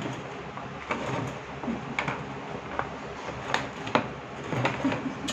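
Red plastic bucket knocking and scraping on a tiled floor while a puppy bites its rim and shoves it, in a run of irregular knocks and clicks, a few of them sharper, over a steady low hum.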